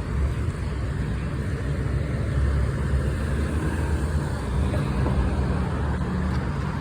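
Steady low rumble of idling fire-truck diesel engines.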